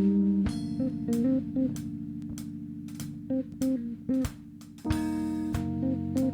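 Instrumental band music: a plucked, bass-guitar-like line over held chords, punctuated by drum hits, with a cymbal crash about five seconds in.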